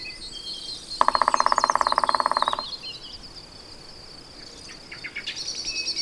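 Black woodpecker drumming on a tree trunk: one fast, even roll lasting about a second and a half, starting about a second in. High-pitched small-bird song runs throughout, with a trill near the end.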